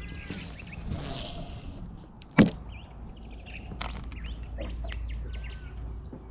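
Fishing line hissing off a spinning reel during a cast, then a single sharp knock about two and a half seconds in. Birds chirp through the rest, over a steady low rumble.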